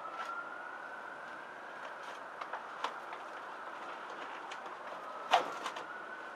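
A distant siren wailing, its pitch slowly rising and falling, with a few light clicks and one sharp knock about five seconds in from the cardboard beer case and pannier straps being handled on the bike's rear rack.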